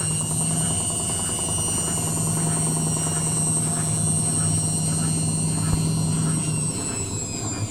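Indesit WITL 106 top-loading washing machine on its spin cycle: the motor and drum run with a steady high whine and low hum, and the drum knocks regularly, about twice a second, as it turns.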